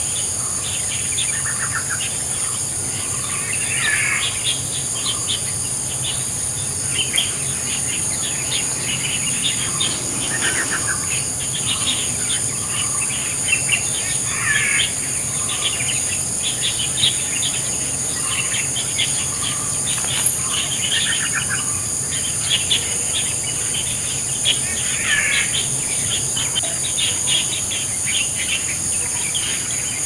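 A steady high insect drone with many short bird chirps over it, and a few louder bird calls that come back about every ten seconds.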